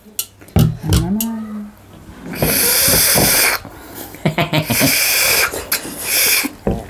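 A person slurping hard twice at river snails (ghongi) in soup, each slurp a long hiss of about a second or more, with small clicks of eating between.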